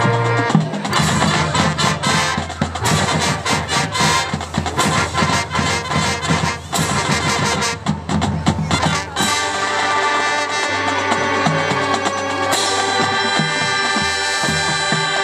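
Marching band playing: rapid percussion hits under the brass for most of the first nine seconds, then the brass section holds sustained chords, swelling louder about twelve seconds in.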